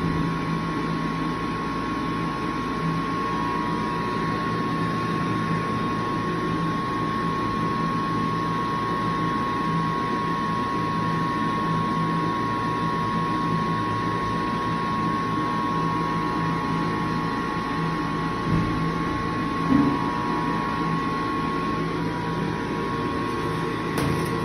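ASI Nova 5 push-button electric hand dryer running steadily: blower noise with a constant hum and a higher whine. It keeps running long after it was started, which the uploader puts down to a timer fault. Two short knocks come about three-quarters of the way through.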